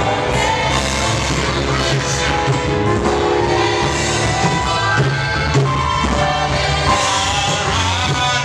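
Live gospel worship music: a band playing with singing over it, continuous and loud.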